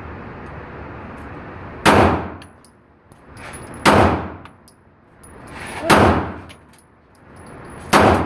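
Four pistol shots fired slowly, evenly about two seconds apart, each a sharp report with a short ringing tail.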